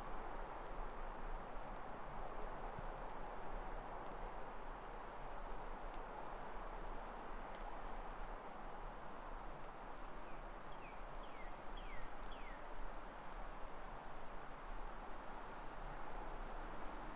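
Footsteps crunching through wet, thawing snow, with small birds calling: many short, thin, high chirps, and a run of four quick down-slurred whistles about eleven seconds in.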